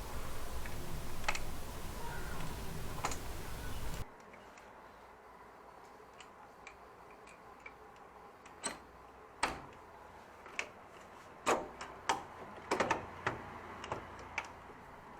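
Sharp, irregular plastic clicks and taps from a washing machine's top control-panel housing being pressed and tapped so its side clips snap into their locks. A steady hiss fills the first four seconds and cuts off abruptly; the clicks come in the second half, several close together.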